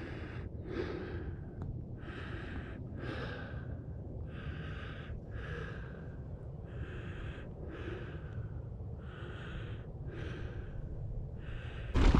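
A person breathing heavily, close to the microphone: even, hissy breaths in and out, about one a second. Right at the end, loud wind and riding noise cuts in.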